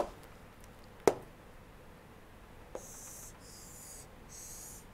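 Two sharp taps of a stylus on a tablet screen about a second apart, then a fainter tap, followed by the pen scratching across the screen in three short strokes.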